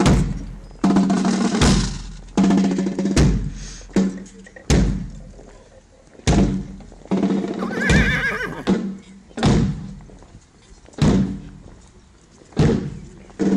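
Slow, measured drum beat of a funeral procession, one stroke about every one and a half seconds, each ringing out, with a low held note sounding between the strokes. About eight seconds in a horse whinnies briefly.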